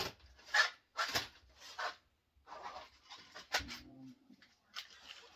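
Rummaging through a drawer of small hardware in search of a washer: a run of short scraping noises, a sharp knock about three and a half seconds in, then a few light clicks.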